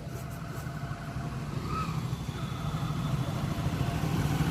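A motor vehicle's engine approaching, growing steadily louder.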